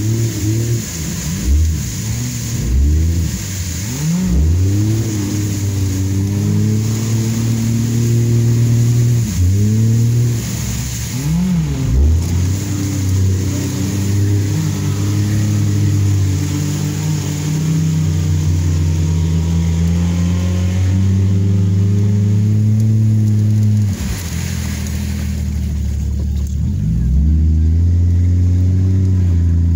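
Off-road vehicle's engine revving hard as it drives through mud, heard from inside the cab. It rises and falls in pitch several times, holds steady at high revs for a long stretch, drops off suddenly, then climbs again near the end.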